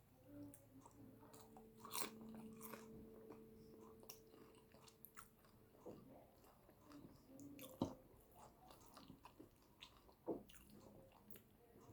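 A person chewing and biting yam with eggplant sauce at close range, with sharp mouth clicks scattered throughout. The loudest clicks come about two, eight and ten seconds in. A faint steady hum lies underneath during the first half.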